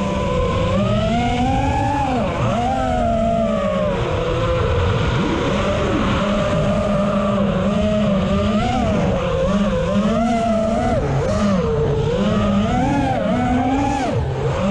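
The four brushless motors (AOKFLY RV2205 2500KV) and Gemfan 5043 three-blade props of a 5-inch FPV quadcopter whine continuously in flight. The pitch rises and falls constantly as the throttle changes.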